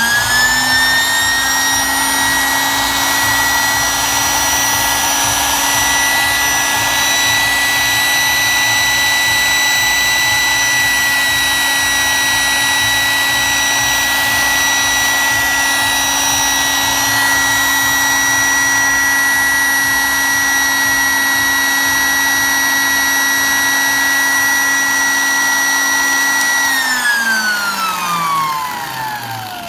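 Vintage AEG UHB 10 electric drill motor running unloaded at full speed with a steady high whine, working again on replaced carbon brushes with its gearbox freshly greased. Near the end it is switched off and the whine falls steadily in pitch as it spins down.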